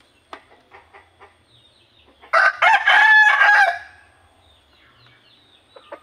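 Burmese rooster crowing once, a loud crow of about a second and a half, after a few short clucks in the first second or so.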